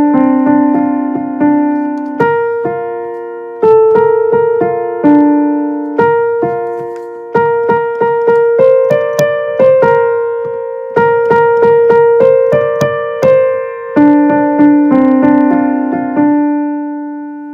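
Piano playing a melody over sustained chords, one struck note after another, ending on a held chord that dies away near the end.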